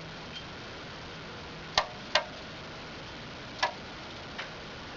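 A few sharp clicks and scrapes from a small animal trapped inside basement pipes, clawing around in there: two close together about two seconds in, then one more, and a fainter one near the end.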